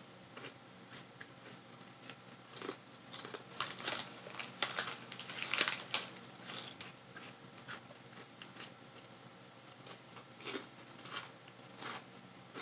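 Plastic snack-chip bag crinkling and crackling as a hand reaches into it and handles it. The crackles are irregular, loudest a few seconds in, then sparser.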